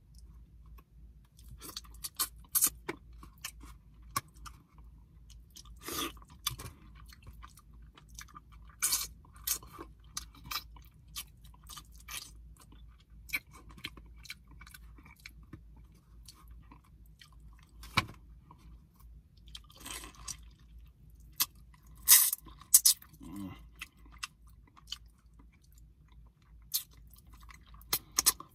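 A man eating close to the microphone: irregular wet chewing, lip-smacking and mouth clicks, with a louder burst of smacks about two-thirds of the way through. Near the end he sucks food off his fingers.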